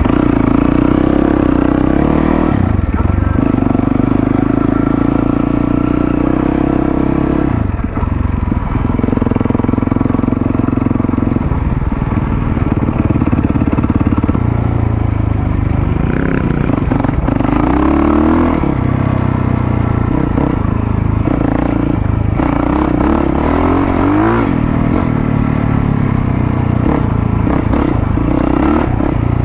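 450cc single-cylinder four-stroke dirt bike engine running under way. The note holds steady for a few seconds at a time, dipping and picking up again as the throttle changes. In the second half it rises and falls repeatedly.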